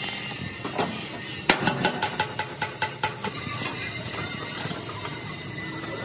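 Arc welding crackling and hissing on steel plate. About a second and a half in, a quick run of about ten ringing hammer strikes on steel, roughly five a second, lasting about two seconds.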